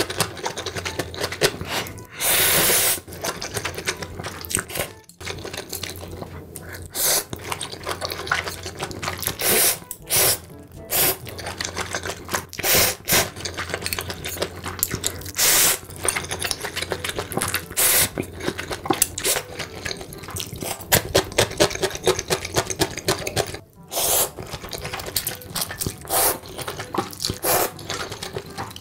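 Close-miked eating sounds: wet chewing, smacking and slurping of big mouthfuls of food, in an irregular run of short bursts with a few louder ones.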